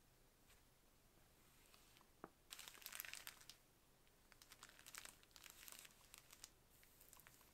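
Packaging crinkling as it is handled, in two stretches about two and a half and four and a half seconds in, with a few light clicks.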